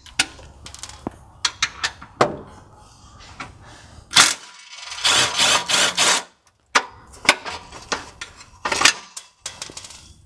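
Cordless impact driver running in short bursts to loosen the two 13 mm bolts on the downpipe's mounting bracket, with sharp metallic clicks and clinks between the bursts.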